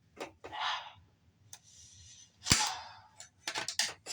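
Plastic parts of a Samsung Blu-ray player being forced apart: scraping and clicks, a loud sharp snap about two and a half seconds in, then a quick run of clicks.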